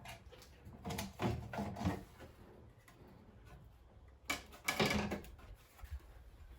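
A van's scuttle panel being worked loose and pulled off below the windscreen: two spells of scraping, rubbing and knocking, about a second in and again a little past four seconds.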